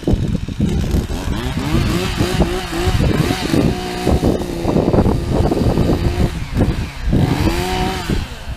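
Chainsaw running under the throttle while cutting a downed tree, its engine pitch rising and falling as it revs, with a clear rev-up and drop near the end.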